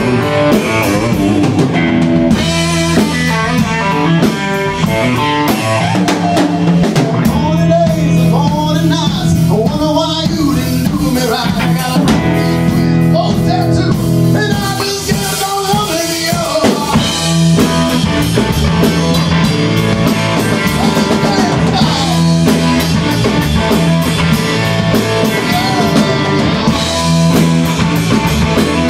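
Rock band playing: electric guitar, bass guitar and drum kit, with a man singing over it through the middle of the passage.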